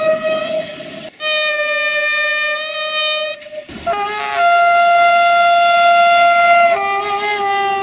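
Train horns sounding in a run of spliced clips: a series of long, steady horn blasts of different pitches, each cut off abruptly. The loudest, higher blast starts about halfway through and holds for over two seconds, and a lower two-note chord sounds near the end.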